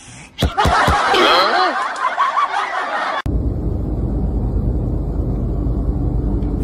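A grey tabby cat yowling, with several bending, wavering cries over about two and a half seconds. After an abrupt cut, a steady low rumble.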